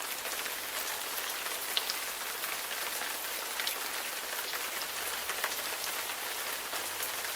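Heavy rain falling steadily: an even hiss with a few sharper drop ticks.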